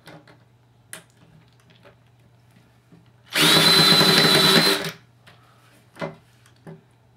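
Power drill running in one burst of about a second and a half, with a steady high whine, amid a few faint clicks and knocks.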